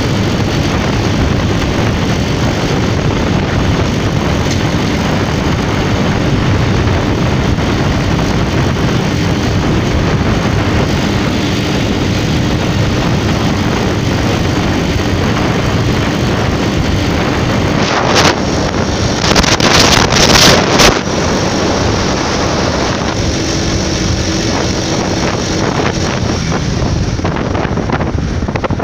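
Wind rushing over the microphone of a moving motorcycle, with its engine running underneath. About two-thirds of the way in, the wind noise grows louder for a few seconds.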